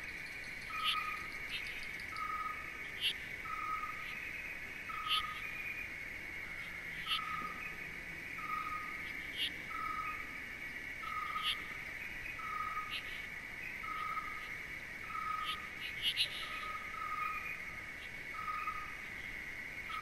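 Night-time nature ambience: a steady insect chorus, a short hooting call repeating evenly about one and a half times a second, and sharp chirps every second or two.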